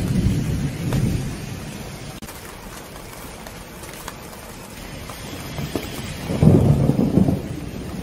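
Rain pattering on a clear plastic cover over a railing-hung succulent rack, with thunder rumbling at the start and again, louder, about six and a half seconds in.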